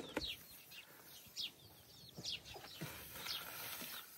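Birds chirping faintly in quick short calls that slide down in pitch, with a few soft knocks in between.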